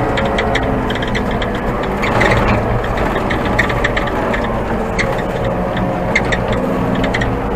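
Old Manitou telehandler's diesel engine running steadily, with irregular clicking and rattling from the machine over the hum.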